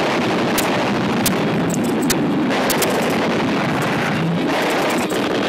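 Steady engine roar of an aircraft sound effect dubbed onto an old newsreel soundtrack, with scattered clicks from the worn film.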